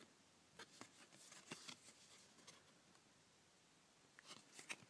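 Faint handling of trading cards: a few soft flicks and scrapes as cards are moved, in the first two seconds and again near the end.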